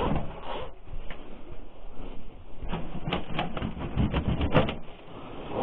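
Irregular knocks and light metallic clatter from a red-painted steel frame being handled and turned onto its side, the taps coming thickest in the second half.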